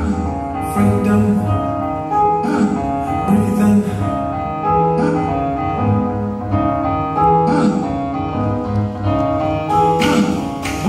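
Instrumental music with held chords over a recurring pulse of low notes, and no singing.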